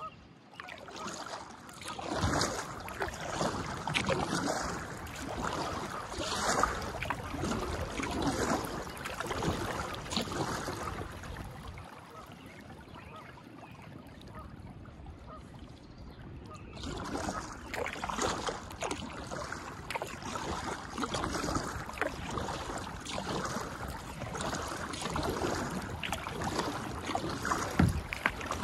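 Kayak paddle strokes splashing and dripping in the water about every two seconds, pausing for a few seconds midway. A single thump near the end.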